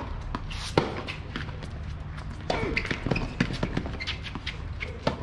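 Tennis rackets striking the ball in a doubles rally on a hard court: sharp pops, with a quick run of them in the middle.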